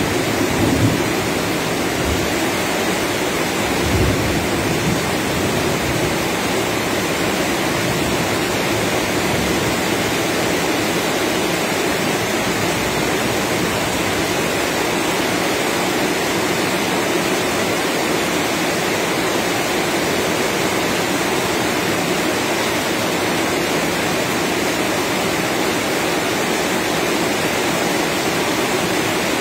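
Heavy rain pouring steadily, a continuous even hiss, with brief low rumbles in the first few seconds.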